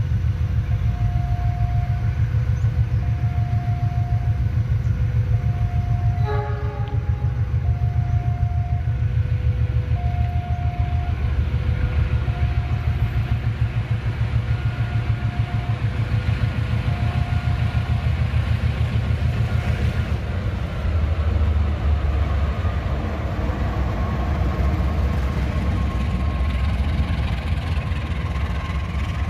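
GE CC 206 diesel-electric locomotive running with a deep steady rumble as it shunts a train of stainless-steel carriages, with one short horn blast about six seconds in. A two-note tone alternates about once a second through the first two-thirds, and near the end a whine falls slowly in pitch.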